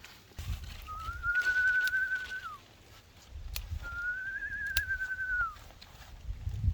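Two long whistled notes, each gliding up, held nearly level with a slight wobble, then falling away at the end, with low rumbling underneath.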